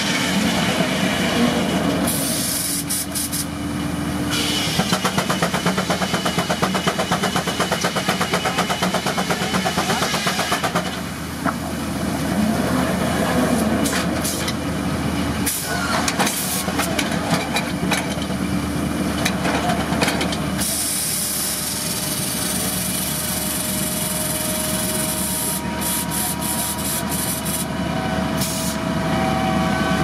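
Steam-driven circular sawmill running, belt-driven by a Case steam traction engine, with a steady high whine throughout. A fast, even beat runs for several seconds in the first half. Compressed air from the mill's pneumatic set works, dogs and log kickers hisses briefly about two seconds in, and again for several seconds from about twenty-one seconds.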